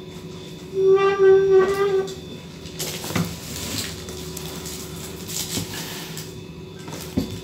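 A single steady whistle-like note held for about a second, followed by rustling and light knocks from a cardboard box being lifted and turned.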